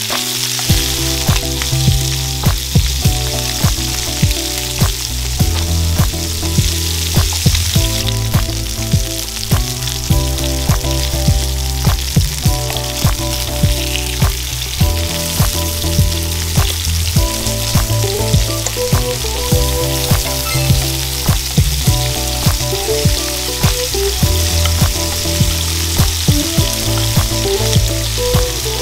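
Chicken thighs sizzling skin side down in a frying pan over high heat, a steady frying hiss, with the tongs now and then shifting the pieces. Background music with a steady beat plays under it.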